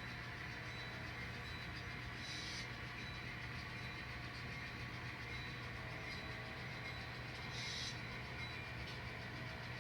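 Diesel locomotive sound from an N scale model train's sound decoder: a steady engine drone through a small speaker, with a brief hiss twice, about two and a half and seven and a half seconds in.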